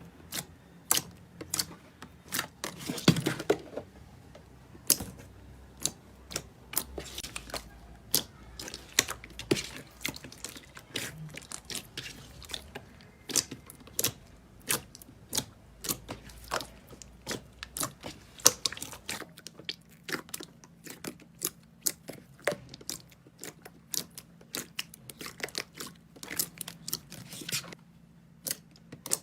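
Slime being squeezed, stretched and poked by hand, giving an irregular run of sharp sticky clicks and popping air pockets, several a second. There is one longer crunchy squelch about three seconds in.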